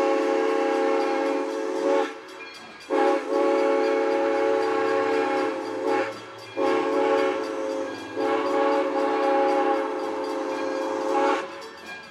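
Steam locomotive's chime whistle blowing the grade-crossing signal: a blast that ends about two seconds in, then a long blast, a short one and a final long blast that cuts off near the end. Each blast is a steady chord of several tones.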